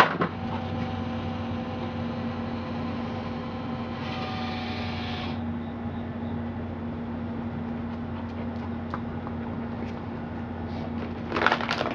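Automatic ball-launching fetch machine humming steadily while switched on, with a sharp thump right at the start as it throws a tennis ball. Near the end come a few short knocks and rustles as the dog noses at the machine's hopper.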